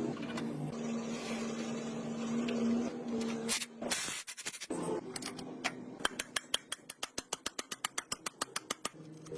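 A small motor running with a steady hum for about four seconds. After a brief pause comes a quick run of sharp clicks, about seven a second, lasting a few seconds.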